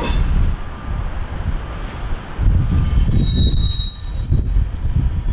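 Freight train cars rolling past with a steady low rumble over the rails. A brief wheel squeal comes right at the start, and a longer high wheel squeal about three seconds in lasts roughly a second.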